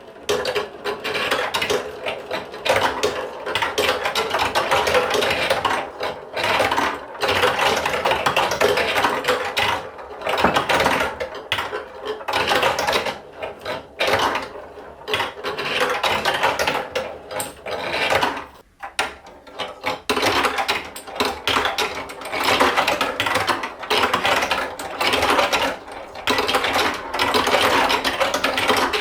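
Plastic toy marble run in motion: a geared mechanism whirring and ratcheting while marbles clatter along the plastic track, with short lulls now and then.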